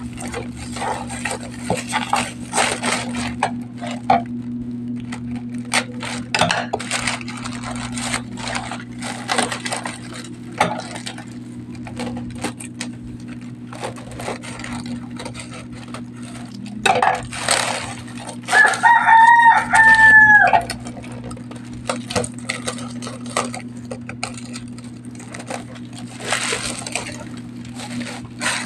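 Packaging being handled and untied: repeated rustling, crinkling and small clicks over a steady low hum. A rooster crows once about nineteen seconds in, a call of about two seconds that is the loudest sound.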